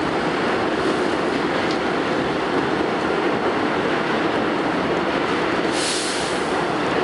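Inside an R68 New York City Subway car running through the tunnel: a steady loud rumble of wheels on track. A brief high hiss comes in about six seconds in.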